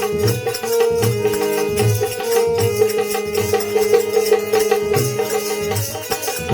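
Instrumental interlude of live Gujarati devotional bhajan music: a steady held melody tone over a regular drum beat of about one and a half strokes a second, with manjira hand cymbals keeping time.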